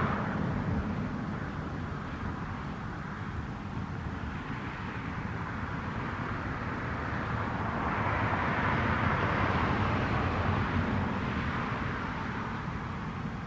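A passing motor vehicle: a noisy rush that comes in abruptly, swells to its loudest about eight to ten seconds in, then fades away.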